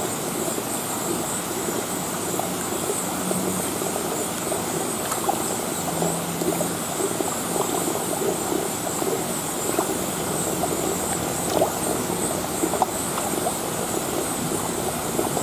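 Steady running water in a saltwater fish tank, with small splashes and clicks now and then as fish snap at fish fillets at the surface. A steady high hiss sits over the water.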